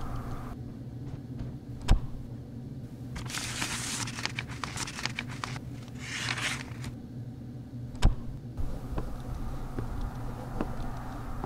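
A plastic mailbox's door opened with a sharp clack about two seconds in, then paper envelopes rustling and crinkling as mail is pulled out, and the door shut with another sharp clack about eight seconds in.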